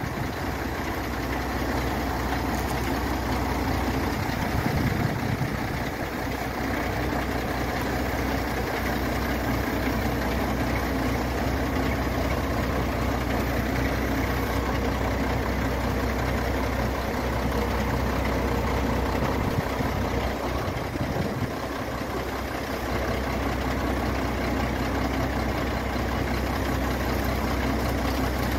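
Truck engine running steadily at idle, powering the hydraulics of a Bonfiglioli truck-mounted knuckle-boom crane while the boom folds upright.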